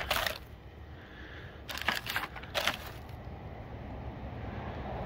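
Plastic packaging and bubble wrap crinkling in three short bursts as a blister-packed hex driver set is handled, over a low steady rumble.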